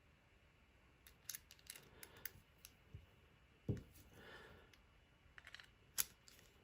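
Small metal padlock parts being handled and fitted back together: scattered light clicks and taps, a dull knock about halfway through, and one sharp click near the end.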